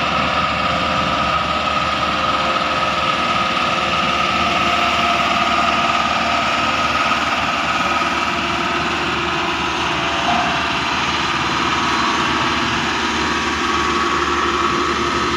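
A heavy machine's engine running steadily, a constant loud drone with a faint steady whine over it.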